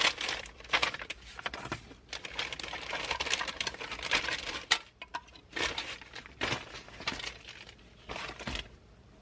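Car radio parts and dash wiring being handled: rustling, with scattered clicks and knocks of plastic and metal pieces, sharper single knocks in the second half.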